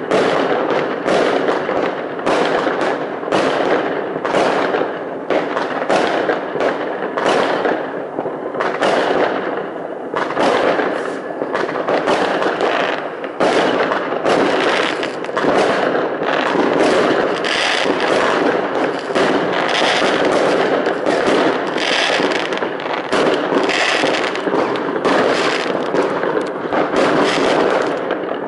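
Aerial fireworks bursting in a dense, continuous barrage: bang after bang, several a second and overlapping, with no pause.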